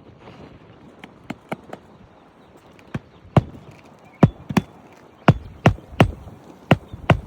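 Hammer driving roofing nails through a shingle by hand: a few light taps about a second in, then a run of harder, sharp strikes about two a second.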